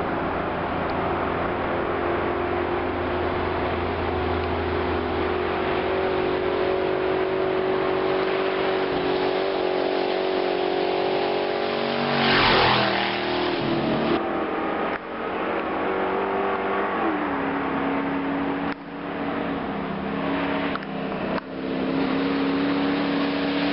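Pickup truck racing up a gravel road. Its engine grows louder as it climbs toward the microphone and passes close about halfway through, with a burst of tyre and gravel noise. It then drops in pitch and fades away up the hill.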